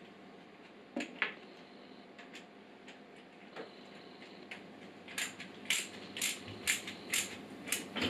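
Hands working inside a PC case: a few scattered clicks and knocks, then a regular run of six short, sharp scraping strokes, about two a second, in the second half.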